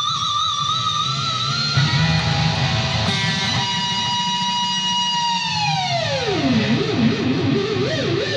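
Harley Benton Fusion II electric guitar with a Floyd Rose tremolo, played through a Mesa/Boogie JP-2C amp and 4x12 cab. A held note shaken with vibrato gives way to a new note picked about three seconds in and held. About five seconds in comes a dive bomb on the whammy bar: the pitch slides steeply down, then warbles as the bar is shaken.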